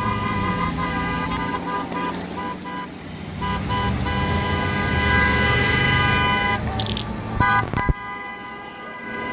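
Cars driving past on a highway with a car horn held in one long, steady blast.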